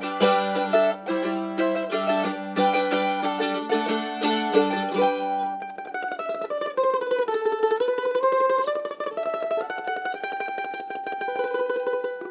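Kentucky KM-120 Army-Navy mandolin, an all-mahogany flat-top laminate body, being played. It starts with picked notes and chords, then from about halfway switches to fast tremolo picking on a melody that dips lower and climbs back up.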